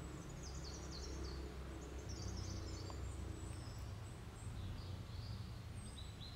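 Birds chirping faintly in short high calls scattered through, over a low steady hum.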